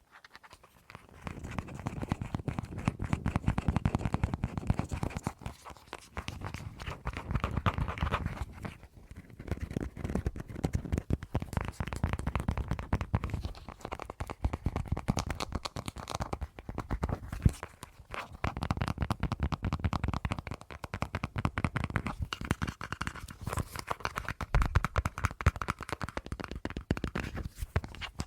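Rapid, close-miked fingertip and fingernail tapping and scratching on a hand-held object, in dense runs of clicks that swell and ease every few seconds.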